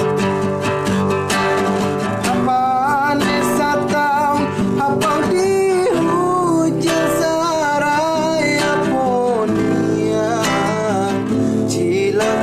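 Acoustic guitar being strummed, with a solo voice singing a Kerinci regional song over it from about two seconds in, the melody bending and wavering.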